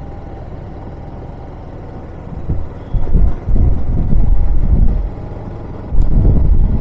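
Motorcycle riding along with its engine running, and wind buffeting the helmet-mounted microphone in loud, uneven low rumbles from about two and a half seconds in and again near the end.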